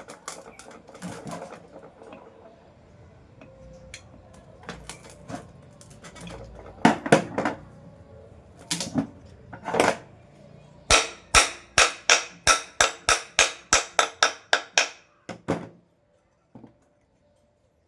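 Sharp knocks and taps on a ceiling fan's motor housing during reassembly: scattered strikes at first, then a quick run of about a dozen evenly spaced strikes, about three a second.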